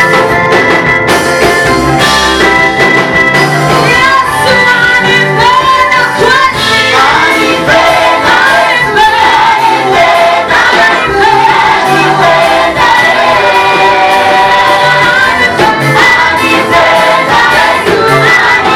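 Gospel praise music: a group of singers with band accompaniment, the voices gliding and held over steady instrumental chords.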